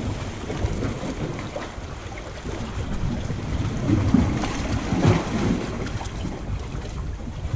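Small sea waves washing in over shallow water among rocks, with wind buffeting the microphone. The wash swells a few times, loudest about four to five seconds in.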